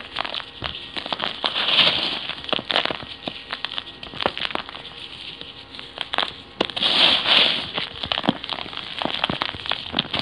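Sand-cement-clay balls being crushed and crumbled by gloved fingers: gritty crackling with many sharp snaps of breaking pieces and stretches of sandy hiss as grains rub and fall. The hiss swells about two seconds in and again around seven seconds in.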